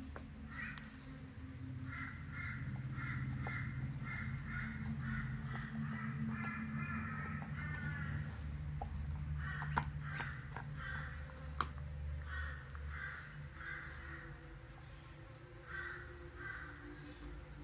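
A dog gnawing a raw lamb shin bone, with two sharp cracks about ten seconds in and again a second and a half later. A bird calls over it in quick bouts of harsh, caw-like notes, about four a second.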